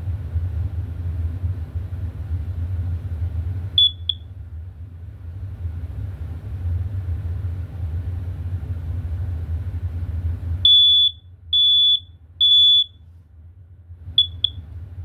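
BRK smoke alarm under test, its piezo horn sounding high-pitched. It gives two short chirps about four seconds in. From about eleven seconds in come three loud beeps about half a second apart, the temporal-three alarm pattern, followed by two short chirps near the end. A steady low rumble runs underneath until the beeps start.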